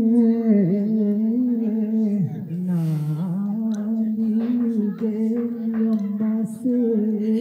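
A man singing solo into a microphone, amplified through a portable loudspeaker, in long drawn-out notes that slide and waver in pitch, with no accompaniment.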